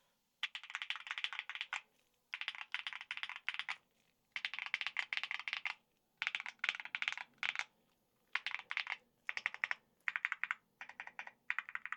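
Mechanical keyboard with regular tactile switches in a PC plate being typed on: quick runs of keystroke clicks about a second long, broken by short pauses.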